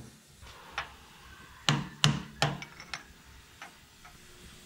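Hand hammer striking a steel punch held against a tractor transmission housing: a few sharp metallic blows, three loud ones in quick succession about two seconds in and lighter taps before and after.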